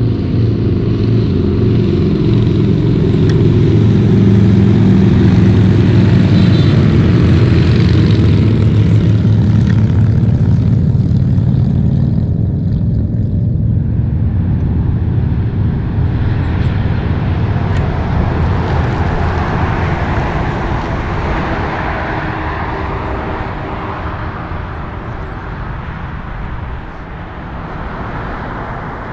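Road traffic: a vehicle engine drones low and steady for the first dozen seconds, then fades. After that a hiss of tyre and road noise swells and slowly dies away.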